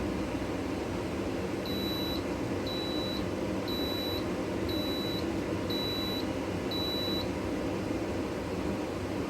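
An electronic beeper sounds six short, high beeps about once a second, over a steady background hum.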